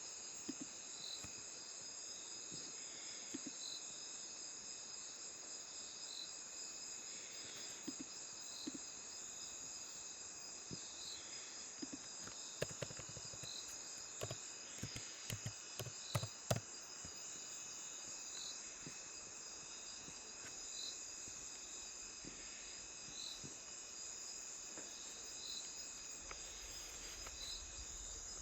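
Crickets chirping steadily: a high trill with a regular chirp about once a second. A cluster of sharp clicks falls around the middle.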